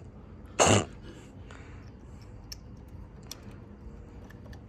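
A person coughs once, short and sharp, followed by faint scattered clicks and taps.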